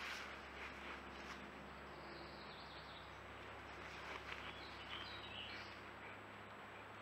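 Faint woodland ambience: a few soft bird chirps two to five seconds in, over a steady low hum, with brief soft rustles near the start.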